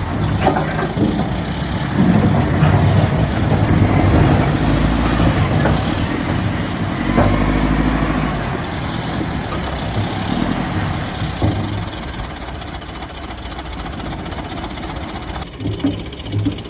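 A heavy machine's engine running steadily, with scattered metallic knocks and clanks, several of them close together near the end.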